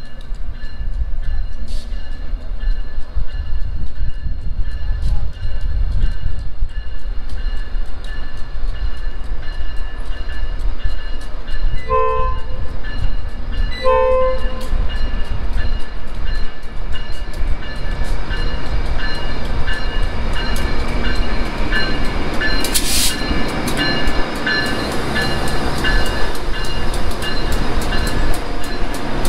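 Subway work train rumbling along the track with rapid clicking from the wheels. It sounds two short horn blasts about two seconds apart near the middle. A brief burst of hiss follows later.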